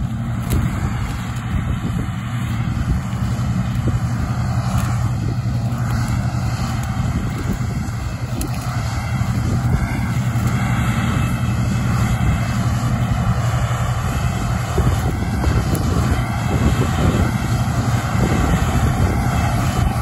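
John Deere 7720 combine harvesting soybeans: a steady diesel engine and threshing-machinery drone that grows a little louder as the combine comes closer.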